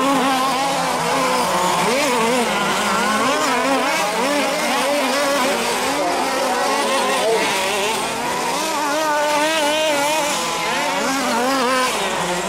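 Several large-scale RC off-road buggies racing, their small two-stroke petrol engines revving up and down in overlapping whines.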